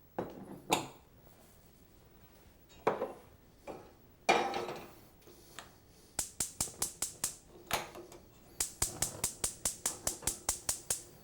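A few knocks of cookware, then two runs of sharp, evenly spaced clicking, about six clicks a second, from a gas burner's spark igniter being lit under the sauté pan.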